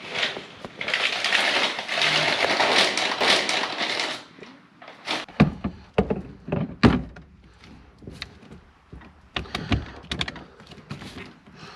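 A car's steering wheel being fitted back onto the column by hand and with tools: a few seconds of dense rattling and scraping, then a string of sharp knocks and clicks.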